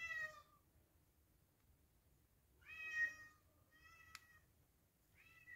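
A domestic cat meowing four times: a short meow at the start, two about halfway through, and a brief one near the end. A single sharp click comes during the third meow.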